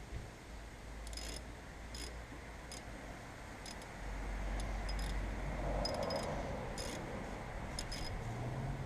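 Light metallic clicks and clacks, about ten at uneven spacing, as a 2009 Subaru Impreza's brake caliper is shifted in and out by hand.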